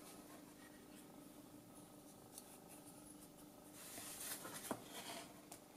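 Faint handling of circuit boards on a workbench: light rustling and tapping as the boards are moved and set down, with a louder rustle and a sharp click about four and a half seconds in.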